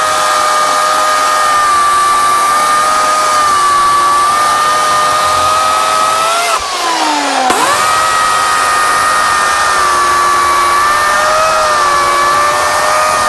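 Titan TTL758CHN 2000 W corded electric chainsaw running at full speed as it cuts through a log, with a steady high motor whine. About six and a half seconds in, the trigger is let off and the pitch falls away. It spins back up about a second later and carries on cutting, then begins to wind down again at the end.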